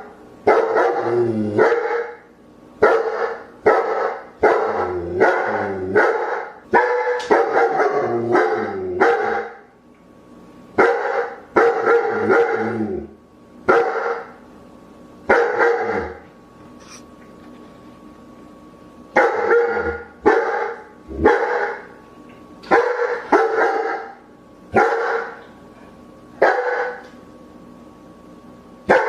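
A dog barking repeatedly in quick runs of loud barks, with pauses of a few seconds between the runs.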